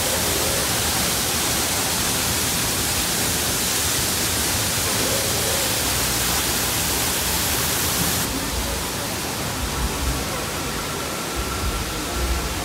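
Steady rushing noise with faint voices under it; its high hiss drops away abruptly about eight seconds in.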